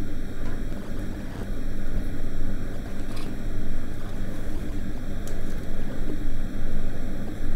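A steady low rumbling drone, with a couple of faint clicks part-way through.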